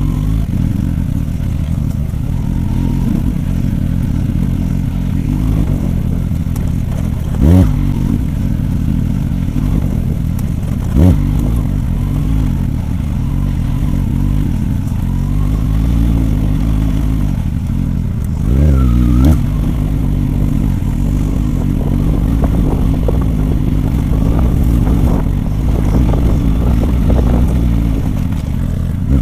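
Motorcycle engine running at low trail speed, with a few short throttle blips along the way.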